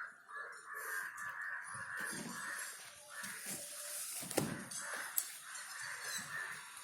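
Birds cawing in the background, a steady rough chatter, with two sharp clicks a little past the middle.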